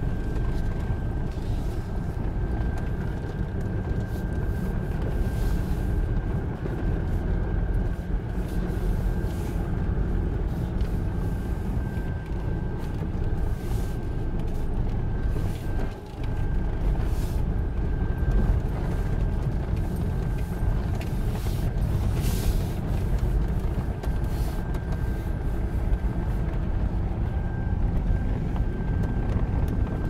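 Inside an off-road SUV crawling over a rocky dirt track: steady engine and tyre rumble, with repeated knocks and rattles of the body and suspension over bumps, and a thin steady high tone.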